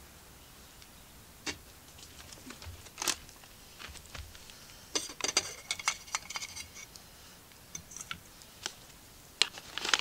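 Metal camping kettle being handled: scattered knocks and clicks, then a quick run of clinks and rattles with a brief metallic ringing about halfway through as the lid is worked, and a couple of sharper clinks near the end as the lid comes off.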